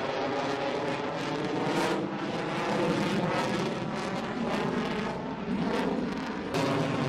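Jet noise from an F-22 Raptor's twin Pratt & Whitney F119 turbofan engines as the fighter flies past: a continuous loud rushing rumble, with a sudden jump in loudness about six and a half seconds in.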